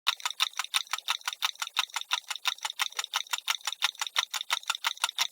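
Clock ticking very fast and evenly, about six sharp metallic ticks a second, starting suddenly.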